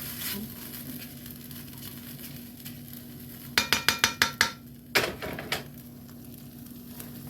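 A metal utensil clinking against a cooking pan: a quick run of about eight ringing clinks about three and a half seconds in, then two more a second later, over a steady low hum.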